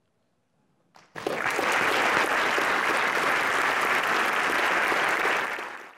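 Audience applauding, starting suddenly about a second in and fading away near the end.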